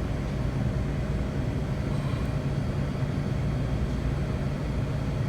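Steady low machinery hum, the even drone of fans and motors running, with no distinct events.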